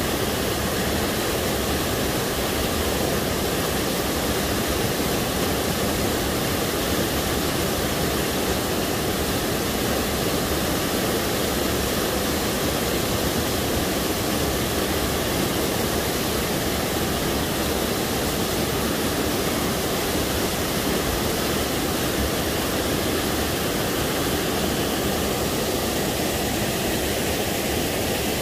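Small waterfall in a rocky forest stream pouring into a pool, a steady, unbroken rush of water.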